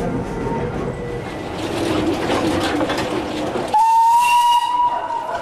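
Chiemsee-Bahn steam tram locomotive running by close at hand, then its steam whistle blows one steady note for about a second and a half near the end.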